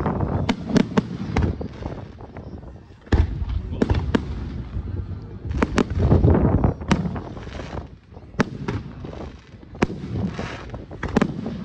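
Aerial firework shells bursting: a run of deep booms, the loudest about three and six seconds in, with sharp pops and crackles in between.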